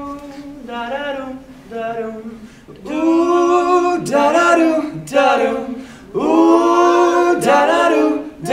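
A small group of men singing a cappella in close harmony: held chords that start softly and get much louder about three seconds in.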